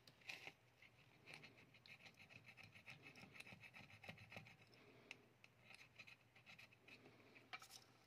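Faint scratching and rubbing of a cotton swab scrubbing a keypad phone's circuit board, with many small ticks and one sharper click near the end.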